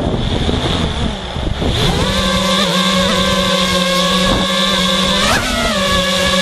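FPV quadcopter motors whining over wind noise: a rushing buffet at first, then a steady multi-toned motor whine that rises and drops briefly with throttle changes, most clearly about five seconds in.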